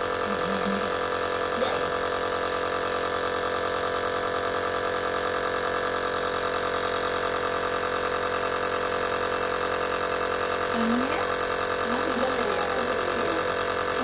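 Electric compressor nebulizer machine running with a steady buzzing hum.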